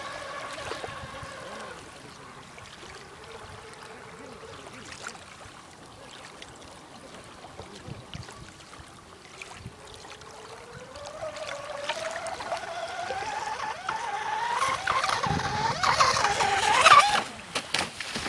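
Radio-controlled racing boat's motor whining as it runs far out and fades. It then climbs in pitch and grows loud as the boat speeds back in close, with a burst of sharp crackles near the end as it passes.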